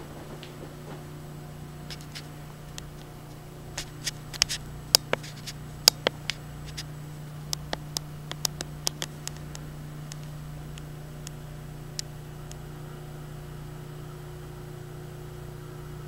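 Steady low hum of running room equipment, with a quick run of sharp clicks and taps in the middle and one more click a few seconds later.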